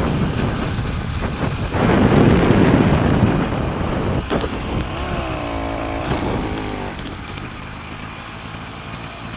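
Motorized bicycle's engine running as the bike is ridden, heavily buffeted by wind on the microphone. About halfway through, the engine's pitch comes through more clearly and wavers, then the wind eases somewhat toward the end.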